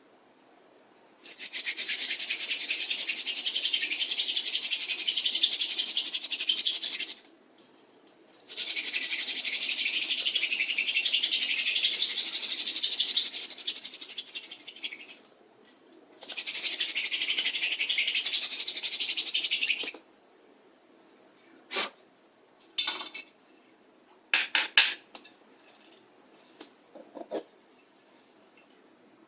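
Hand-drill friction fire: a wooden spindle spun between the palms grinds and squeaks against the hearth board in three long runs of several seconds each, with short breaks between them. Near the end come a few short sharp knocks and taps.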